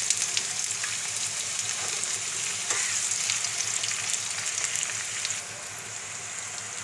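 Chopped onion sizzling and crackling in hot oil in a pan. The sizzle eases a little about five seconds in.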